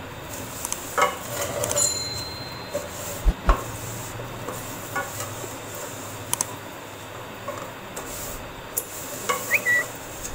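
A wooden spatula stirring fine vermicelli as it roasts in ghee in an aluminium pot: scraping with irregular knocks against the pot over a faint steady sizzle.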